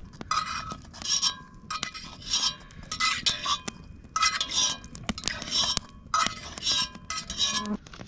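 A metal fork clinking and scraping against a cast-iron camp oven as roast vegetables are lifted out into a bowl. There are repeated short clinks, some with a brief ringing tone, roughly one every half second.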